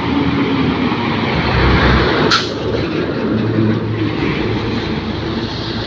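Heavy tractor-trailer truck with a loaded triple-axle flatbed passing close by, its diesel engine and tyres loud and steady. A brief sharp hiss comes a little over two seconds in.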